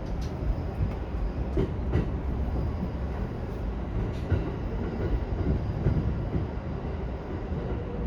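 Running noise of a JR East E231 series commuter train heard from inside the car: a steady low rumble with scattered clicks and knocks of the wheels over the rail joints.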